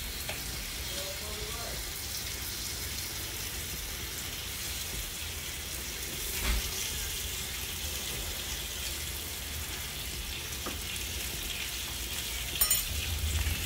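Bacon strips sizzling steadily on an electric griddle, with a single knock about six and a half seconds in.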